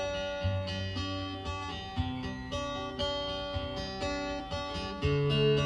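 Background music: a melody of steady pitched notes over a bass line, growing louder with a low held note about five seconds in.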